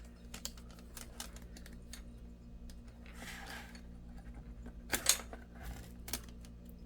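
Light clicks and scraping from a plastic pry tool working a laptop's screen bezel loose from its adhesive and clips, with a sharper snap about five seconds in.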